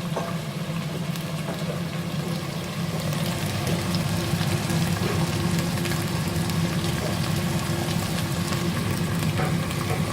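Chicken frying and sizzling in green curry paste and oil in a pan, over a steady low hum, a little louder from about three seconds in.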